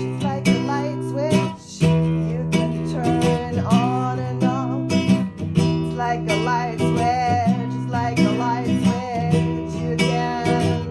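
Music: acoustic guitar strumming chords.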